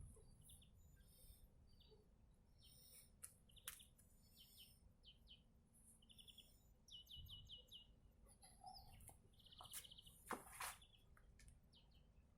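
Small birds chirping and trilling faintly in short high phrases, including a rapid run of repeated notes about seven seconds in and a buzzy trill near ten seconds in. A few faint sharp clicks are scattered among them.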